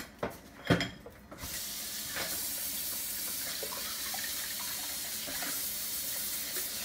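A few knocks, then a kitchen tap turned on about a second and a half in, water running steadily into the sink.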